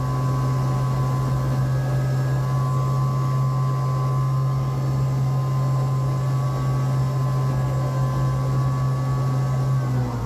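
Land Rover Discovery's 300Tdi 2.5-litre four-cylinder turbodiesel running hard at steady high revs, with the pitch dropping right at the end, typical of trying to drive the stuck vehicle out.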